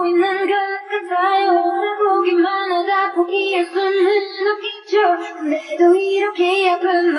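A soundtrack song: a high voice sings a slow melody of held, wavering notes.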